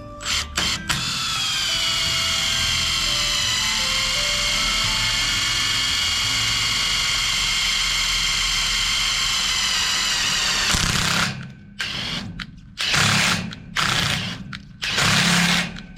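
A handheld power tool's motor running steadily for about ten seconds with a whine that dips slightly in pitch early on, then five short bursts.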